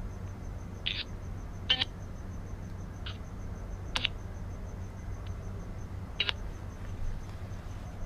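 Steady low electrical hum with a faint, fast, high ticking under it, broken by about five short, sharp clicks or chirps.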